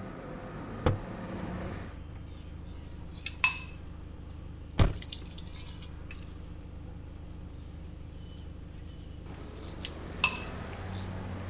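A few sharp clinks, two of them with a brief glassy ring, and one heavier knock about five seconds in, over a steady low hum.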